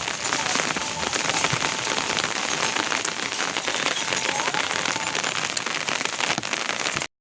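Steady rain falling on surfaces: a dense, even hiss full of small drop ticks, at a constant level throughout.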